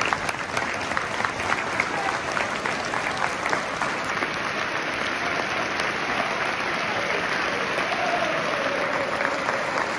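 Large football stadium crowd applauding together in sustained clapping, a tribute applause for the 21 victims of the 1974 Birmingham pub bombings.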